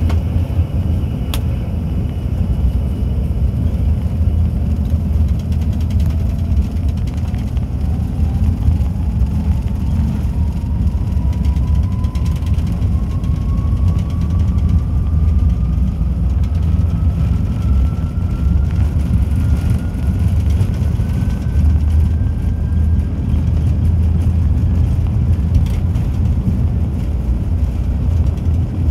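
Cabin noise inside an Embraer ERJ-145 regional jet, its two rear-mounted Rolls-Royce AE 3007 turbofans pushing it down the runway on the takeoff roll: a heavy, steady low rumble, with a thin whine that climbs steadily in pitch from about six seconds in as the jet gathers speed.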